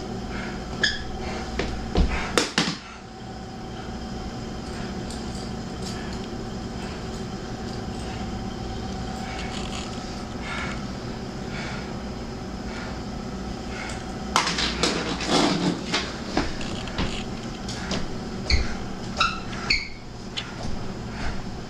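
A few sharp knocks and rustling handling noise in a dark room over a steady sustained drone. There is a busier cluster of knocks and shuffling about two-thirds of the way through.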